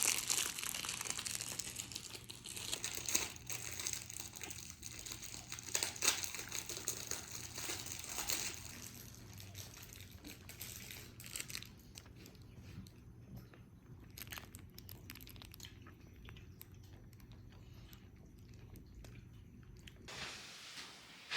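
Plastic food packaging crinkling and rustling as it is handled, with small clicks and taps. It thins out in the second half, leaving a faint low hum.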